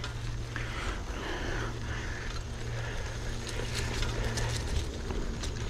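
Trek FX2 hybrid bicycle rolling along a forest trail, with a steady low rumble and scattered mechanical clicks and rattles from the bike.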